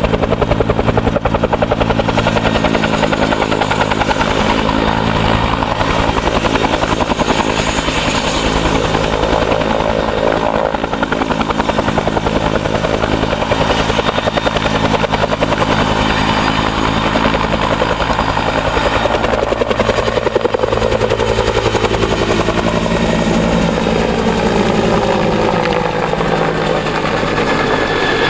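Two-bladed Huey-type helicopter running loud, with a fast rotor beat and a high steady turbine whine as it hovers low. Near the end its pitch falls as it flies off with a water bucket slung underneath.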